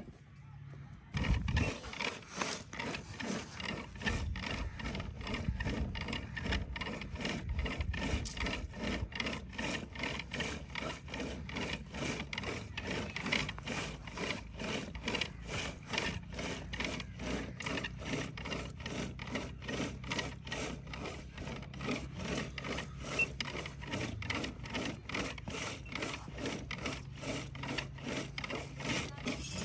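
Rhythmic rubbing and scraping from a hand-worked kitchen implement, about two and a half even strokes a second, starting about a second in.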